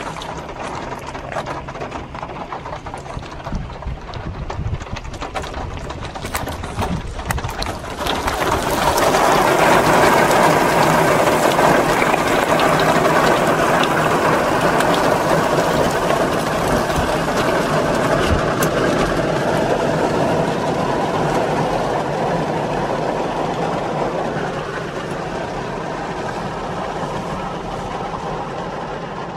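Thunder rolling: a long, noisy swell comes in about eight seconds in, holds, and then dies away slowly.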